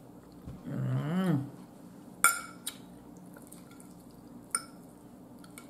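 A metal fork clinks against a dinner plate: one sharp clink a little after two seconds, then fainter clicks. About a second in there is a short closed-mouth hum that rises and then falls in pitch while she chews.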